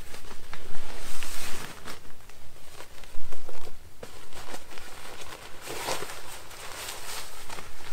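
Rustling and crinkling of a polyester camping hammock and its stuff sack being handled and pulled out, with irregular scuffs and crackles. The louder bursts come about a second in, around three seconds in and near six seconds.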